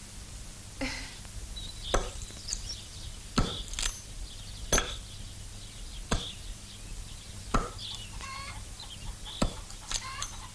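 An axe chopping into a hardwood tree trunk: single sharp strikes about every one and a half seconds. The blade is blunt.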